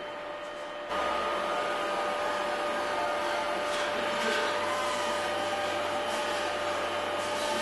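Steady mechanical hum with a high, even whine, which suddenly gets louder about a second in and then holds steady.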